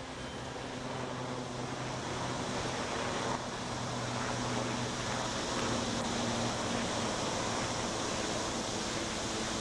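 Steady, even noise of a construction site and city traffic, with a faint low machine hum underneath.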